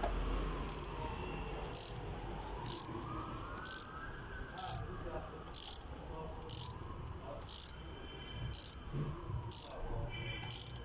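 Ratchet clicking in short, evenly spaced rasps about once a second as it turns an M10 thread tap into a stripped bolt hole, cutting new threads. A faint siren wails up and down in the background.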